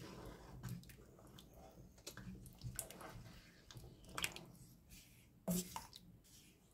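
Silicone spatula stirring thick lamb curry in a pot: faint wet squelching and slopping of the gravy, with a few sharper knocks, the loudest about four and five and a half seconds in.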